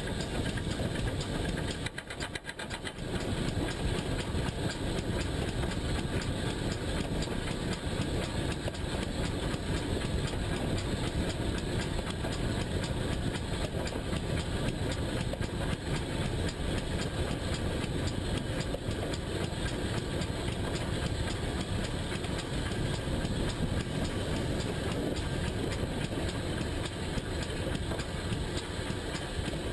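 GWR pannier tank steam locomotive running along the line, picked up by a camera fixed to its front: a steady running noise, with a brief drop about two seconds in.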